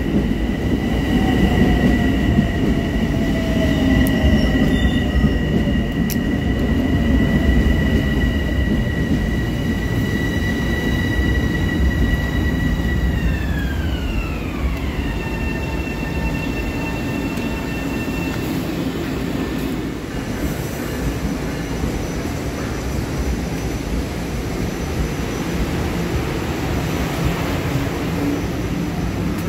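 A train running past with a steady rumble of wheels on the rails and a high whine of several pitches. About halfway through, the whine glides down together and then holds at the lower pitch.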